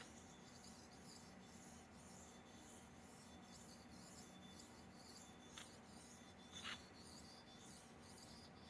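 Straight razor blade stroked back and forth on a sharpening stone: a quiet, even scraping, about two to three strokes a second, with two small clicks a little after the middle.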